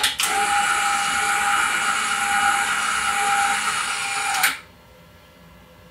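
Electric drive of a Wehrs UltraForce spring-rating machine running as it loads a race car's pull bar to check its rate: a steady motor whine with a high hum that stops abruptly about four and a half seconds in.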